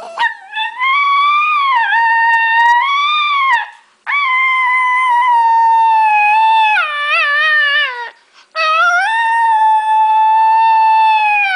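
Chihuahua howling: three long, wavering howls with short breaths between, the second dropping lower in pitch near its end.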